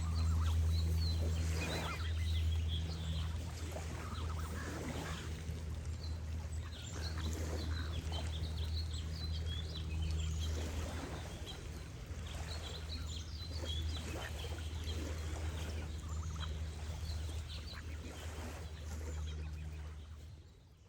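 Geese honking now and then over many small birds chirping and a steady low water rumble, all fading out at the end.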